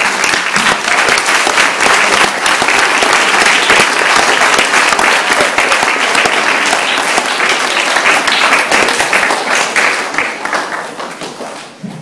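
Audience of adults and schoolchildren applauding, a dense steady clapping that dies away near the end.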